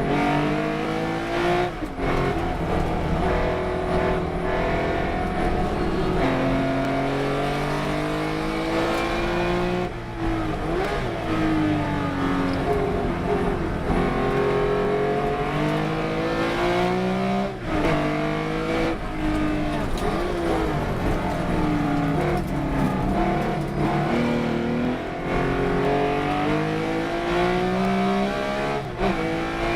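Race car engine at full race pace. Its pitch climbs steadily and drops sharply at each upshift, again and again. Around ten seconds in and again near eighteen seconds the pitch falls with short sharp breaks as it slows through the gears for corners.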